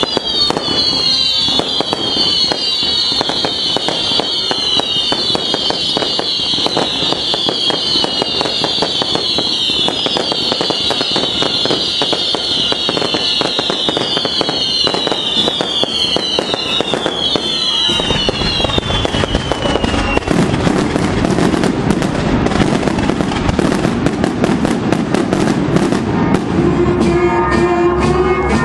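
A daytime firework barrage: a dense, rapid crackle of firecracker bangs, with a high whistle falling in pitch over and over through the first two thirds, then heavier, deeper bangs. A brass band starts playing near the end.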